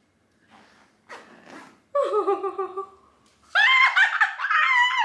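A woman laughing with excitement: a couple of breathy gasps, then laughter, rising to a loud, high-pitched squeal from about halfway through.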